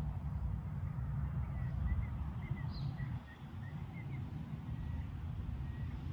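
Wind buffeting the microphone in a steady low rumble, with a bird's short chirps from about a second and a half in until about four seconds in.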